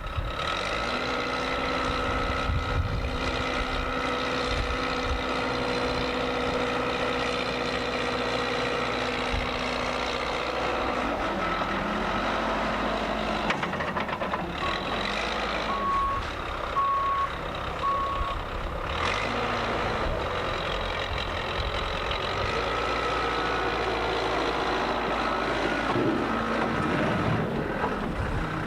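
A heavy vehicle's engine runs steadily, and a reversing alarm beeps four times, about once a second, around the middle.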